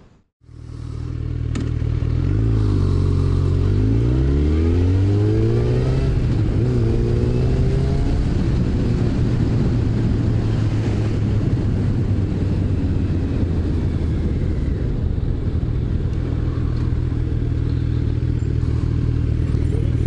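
Yamaha FZ1's inline-four engine pulling through several gears, its pitch climbing and dropping back at each upshift, then holding steady at cruising speed, with wind and road noise.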